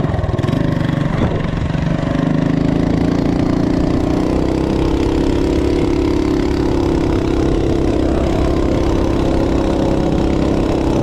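Coleman CT200U minibike's 196cc single-cylinder four-stroke engine, fitted with a header pipe, at full throttle under way. It revs up in the first couple of seconds, then holds a steady pitch while the bike keeps gaining speed: the torque converter lets road speed climb while engine speed stays nearly constant.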